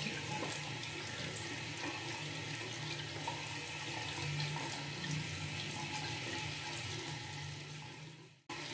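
Water running steadily from a bathroom tap into a sink. It cuts out briefly near the end.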